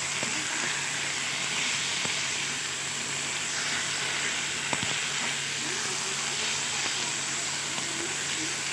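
Mashed taro leaves frying in oil in a kadai, sizzling steadily, with one sharp knock about halfway through.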